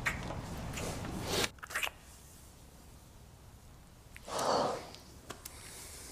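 Close-up kissing and breathing sounds: a few soft lip smacks, then one sharp breath about four seconds in. A low rumble of background noise drops away after about a second and a half.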